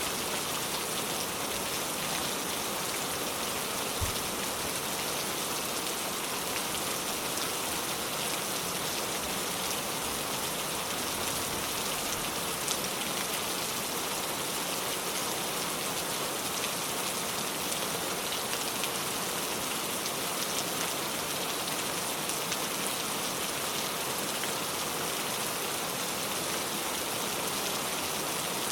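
Steady rain falling on a surface, an even hiss with scattered sharper drop hits.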